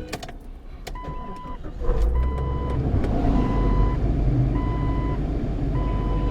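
An electronic warning beeper sounding in a steady rhythm, about one half-second beep every 1.2 seconds. Under it runs a vehicle engine's rumble, which grows louder about two seconds in.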